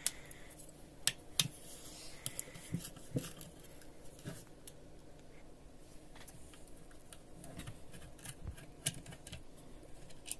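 A screwdriver unscrewing small screws from a steam iron's metal base: irregular sharp clicks and light scraping of metal on metal, with a few louder clicks in the first second or so.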